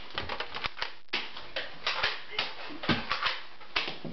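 Quick, irregular knocks and thumps, several a second, from bare feet striking the floor as a child runs and jumps.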